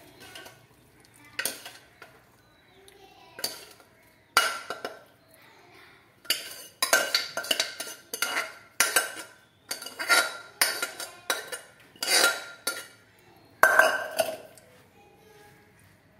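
A metal spoon scraping and knocking against the inside of a pressure cooker and the kadai below it, then stirring in the pan: a run of sharp clanks, a few at first and coming thick and fast from about six seconds in, before stopping near the end.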